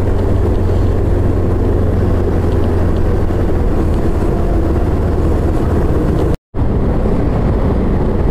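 Steady low rumble of a motorcycle riding slowly, its engine and road noise heard from the bike-mounted camera. The sound drops out for an instant about six seconds in.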